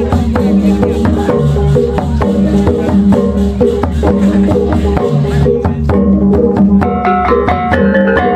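Balinese gamelan music: fast, dense strikes on tuned metal percussion over drums. About six seconds in, the cymbal hiss drops away and higher ringing tones come to the front.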